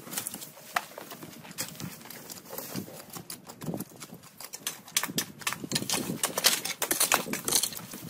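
Dry brush and twigs crackling and rustling as they are pulled up by hand and raked over the ground, with irregular clicks and scrapes that grow busier and louder in the second half.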